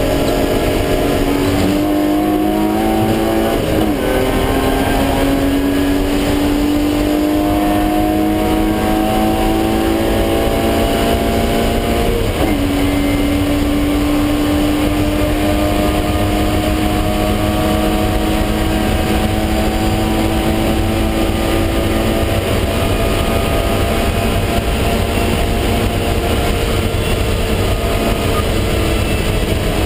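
BMW E36 M3's straight-six engine heard from inside the cabin, accelerating through the gears: the revs climb slowly, drop sharply at upshifts about four and about twelve seconds in, then hold nearly steady through the last third.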